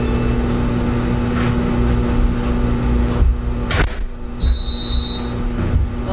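Low, steady rumbling drone with a constant hum, broken by a sharp hit about three and a half seconds in. A short, thin, high-pitched beep follows about a second later.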